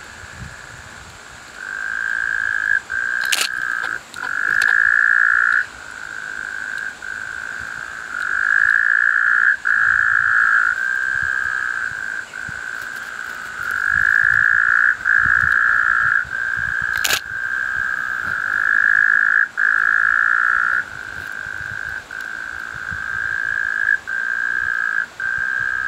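Frogs calling in a continuous night chorus: overlapping mid-pitched trills, some louder stretches about a second long, with hardly a break. Two sharp clicks cut through, a few seconds in and again about two-thirds of the way through.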